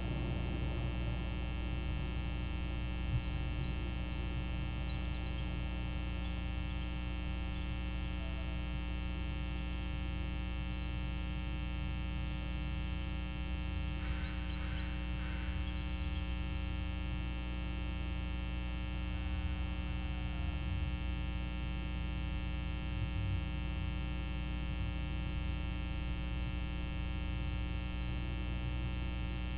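Steady electrical mains hum from the webcam's audio feed, made of many steady tones at once.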